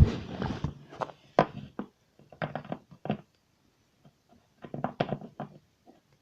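Small plastic toy figurines being handled and set down, making light taps and clicks in three short clusters with pauses between.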